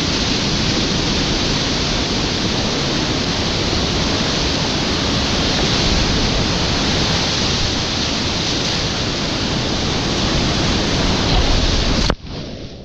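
Whitewater cascade rapids rushing, a loud, steady wash of falling water that cuts off abruptly near the end.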